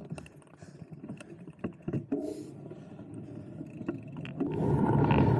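Mountain bike riding on a trail: scattered clicks and rattles from the bike over a low rumble, then about four seconds in a much louder rumble of wind on the microphone sets in suddenly.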